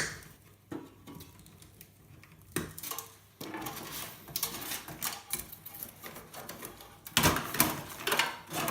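Wires and cable connectors being pulled out of an old Pentium 3 tower computer case: a sharp click at the start, a few more clicks, then irregular rattling and clattering of cables and parts against the case, busiest and loudest near the end.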